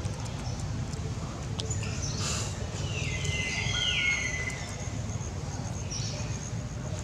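High-pitched chirping calls that step down in pitch, about three to four seconds in, over a steady low outdoor rumble.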